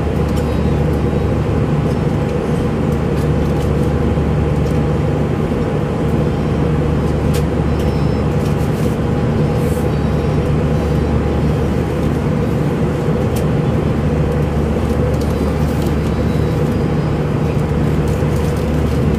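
Steady drone of an airliner cabin in flight, engines and rushing air, with a faint steady tone above it and a few light clicks.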